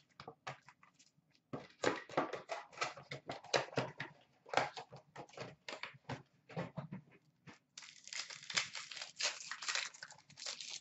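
Hockey card packaging being handled and opened: a run of crinkles and clicks, then a denser, longer crinkling tear about eight seconds in as a foil pack wrapper is ripped open.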